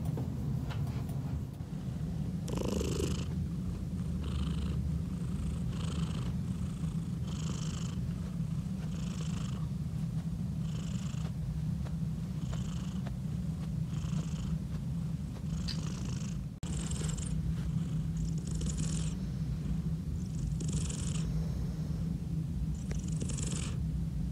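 Blue point British Shorthair cat purring steadily, close to the microphone, with a soft breathy sound at each breath about every one and a half to two seconds.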